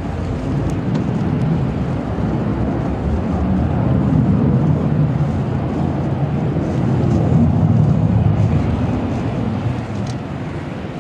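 Embraer 190 jet's twin GE CF34-10E turbofans at takeoff power, a deep steady roar as the aircraft climbs away. It swells about halfway through and eases a little near the end.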